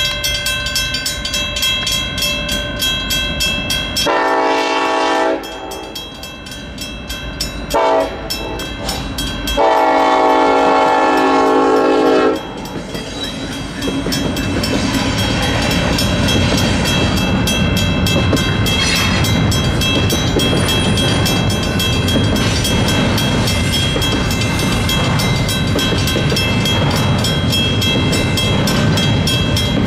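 WCH mechanical crossing bell ringing while a Union Pacific freight locomotive's air horn sounds three times: one blast about 4 s in, a short one about 8 s in, and a longer one from about 10 to 12 s. Then the intermodal stack train rolls through the crossing with a steady rumble and clickety-clack of wheels on rail.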